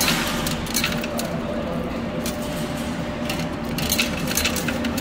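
Metal peso coins clinking and sliding inside a coin pusher arcade machine: scattered short, sharp clinks over a steady mechanical hum.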